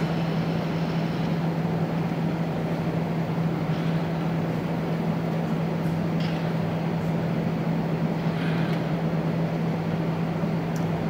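Steady machine hum with a constant low drone. A few faint short whirs come through about four, six and eight seconds in.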